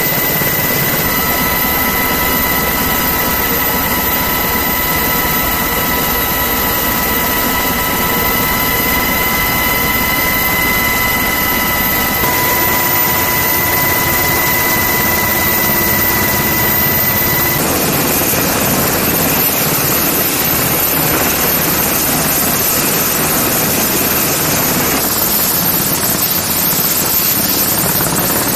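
MH-60S Seahawk helicopter running, a steady whine from its twin turboshaft engines and gearbox over the rotor noise, heard from inside the cabin. About two-thirds of the way through, the whine drops away and the sound becomes an even rushing rotor noise.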